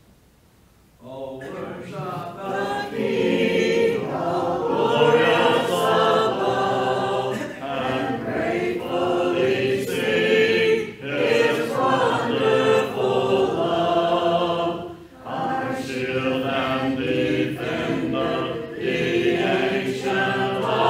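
A church congregation singing a hymn a cappella, voices only with no instruments, coming in about a second in.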